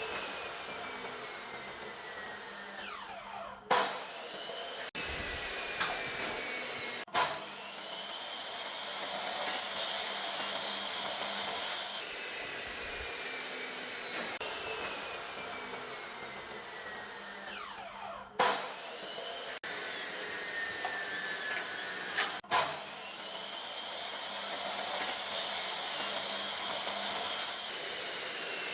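A power tool running with a steady whir, broken by sharp knocks and whines that fall in pitch. The same sequence of sounds repeats about every fifteen seconds.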